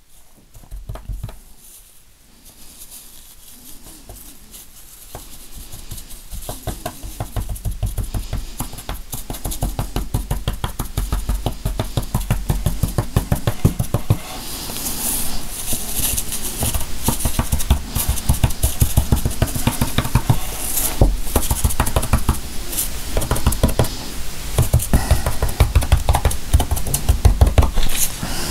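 Rapid light tapping, several taps a second, growing louder after the first few seconds, with a low thump under each tap: small flakes of gold leaf being dabbed down onto a tray.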